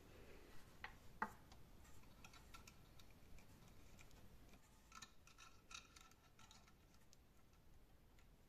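Faint clicks and small metallic ticks of spring-loaded alligator clips being squeezed open and clamped onto a subwoofer's wire terminals: two sharp clicks about a second in, then a cluster of lightly ringing ticks around five to six seconds in.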